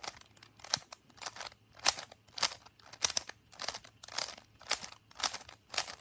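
Plastic Rubik's-type speed cube being turned layer after layer, each turn a short clack, about two to three a second in a fairly even rhythm.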